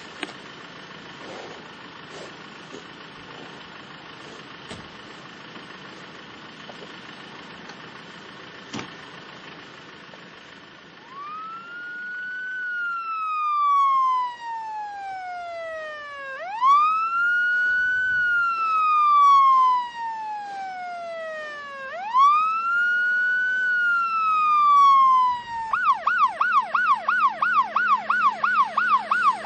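Faint steady background noise, then from about eleven seconds in an emergency-vehicle siren wailing slowly up and down three times. About 26 seconds in it switches to a fast yelp, rising and falling several times a second.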